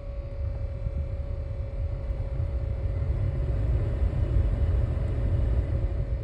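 Dashboard HVAC blower of a 2012 Nissan Pathfinder being turned up, its air rush growing louder and easing off near the end. Underneath runs a steady whirring tone from the centre-left of the dash that does not change with the fan speed; the owner rules out the blower and the mode actuators as its cause.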